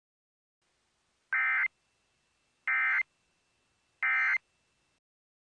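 Emergency Alert System end-of-message signal: three short, identical bursts of SAME digital data tones, about a second apart.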